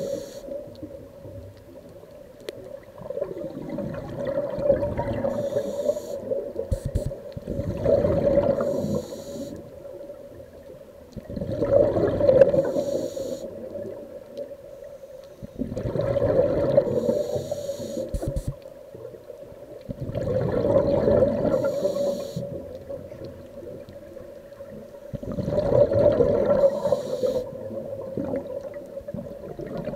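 Scuba diver breathing through a regulator underwater: a rumble of exhaled bubbles about every four to five seconds, six times, each followed by a short hiss of inhaling, over a steady hum.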